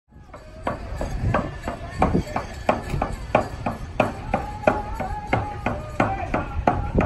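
Background music with a steady percussive beat of about three strikes a second under sustained melodic notes.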